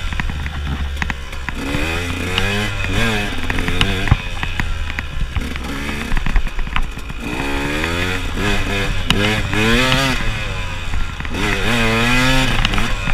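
KTM enduro motorcycle's engine revving up and falling back again and again as the rider works the throttle along a rough forest singletrack, with short knocks and clatter from the bike over the trail.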